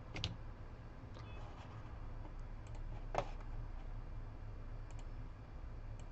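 A few sharp, isolated clicks from handling on a repair bench, the loudest about three seconds in, over a low steady hum.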